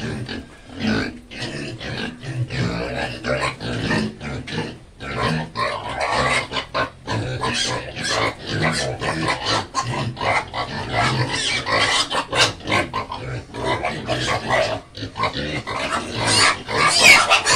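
Hungry young pigs squealing and grunting noisily without let-up while they wait to be fed, getting louder and shriller near the end.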